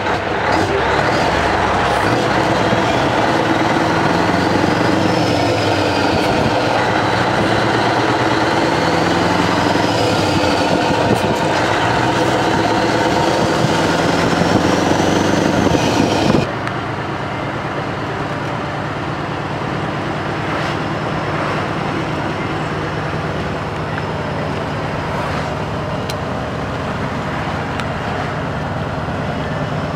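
Scania R500 truck's V8 diesel engine pulling on the road, its pitch rising and falling several times, with wind and tyre noise heard through the open cab window. About halfway through it switches to a quieter, steady drone heard inside the cab.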